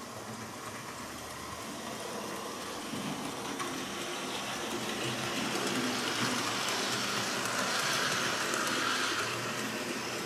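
Hornby OO-gauge Hogwarts Express model locomotive and coaches running on the track. The DC motor whirrs and the wheels rumble steadily, growing louder over the first few seconds, loudest past the middle, then easing near the end.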